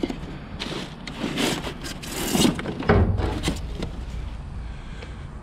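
Dumpster debris being shifted by hand: plastic sheeting and cardboard rustling, wooden panels scraping and knocking, with a heavier thump just before three seconds in.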